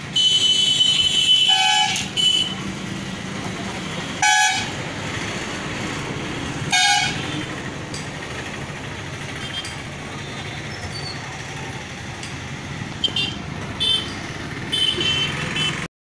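Street traffic with vehicle horns honking: a long honk over the first two seconds, short toots about four and seven seconds in, and a few more near the end.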